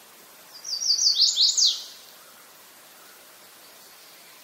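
A songbird sings one short phrase of six or seven quick notes, each sliding down in pitch, the later ones louder and sweeping lower, lasting about a second. A faint steady background hiss runs underneath.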